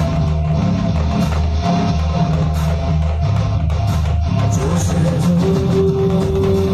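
Loud music over an outdoor stage sound system, heavy in the bass. A held note comes in about five and a half seconds in.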